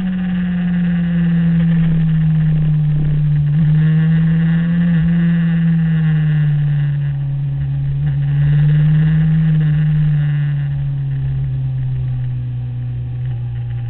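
Sport motorcycle engine at speed on a track, its note held fairly steady and slowly falling in pitch, with a brief rise a little past halfway. Wind rushes over the onboard microphone underneath.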